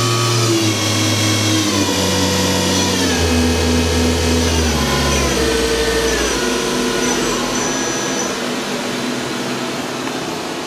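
Doosan DNM-400 vertical machining center's spindle whining as it is slowed down from its 8,000 RPM maximum, its pitch falling in a series of steps and the sound getting quieter toward the end.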